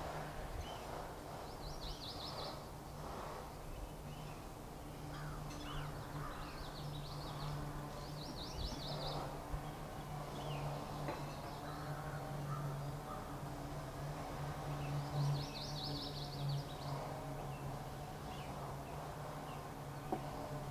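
Outdoor ambience of birds calling: a short, fast, high trill comes three times, with a few faint chirps between, over a steady low hum.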